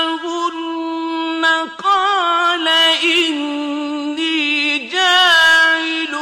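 A male Qur'an reciter chanting in the drawn-out, melodic mujawwad style, holding long high notes with wavering ornaments. The voice falls in pitch and breaks briefly twice, at about two and five seconds in.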